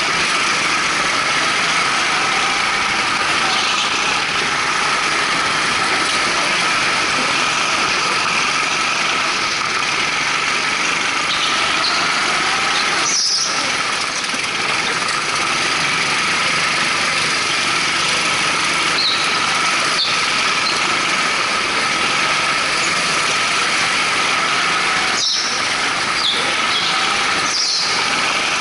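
Rental go-kart engines (twin Honda GX200 four-strokes) running hard on the track, heard from on board as a steady engine noise. Short tyre squeals come in the corners, once about halfway through and a few times near the end.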